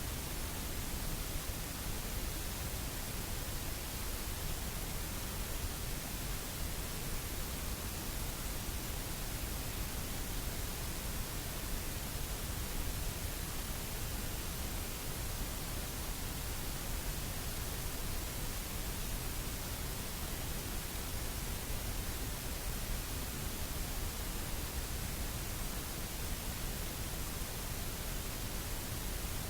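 Steady, even hiss with nothing else in it: no voices, tones or knocks, and no change in level.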